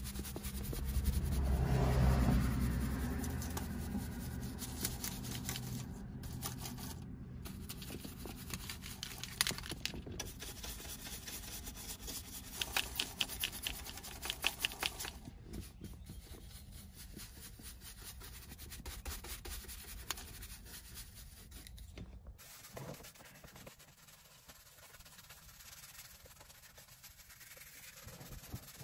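Bristle detail brush scrubbing the damp carpet and plastic of a car's center tunnel in quick back-and-forth strokes, coming in rapid clusters. A low rumble swells about two seconds in and is the loudest moment.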